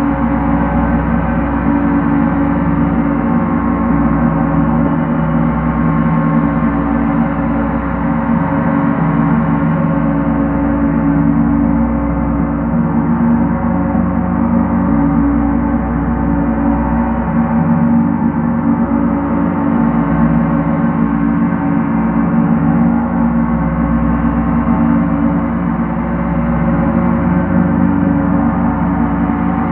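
Large gong played with a continuous roll of two felt mallets. The result is a dense, steady wash of many overlapping ringing tones at an even level, with no separate strokes standing out.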